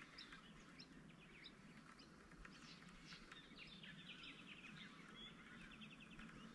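Faint birds chirping in rapid short high notes, over a quiet outdoor hiss.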